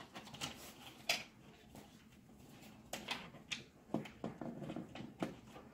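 Small plastic clicks and taps from a fiber-and-phone wall faceplate and its cables being handled and fitted onto a wall box: one sharp click about a second in, then a run of clicks and taps in the second half.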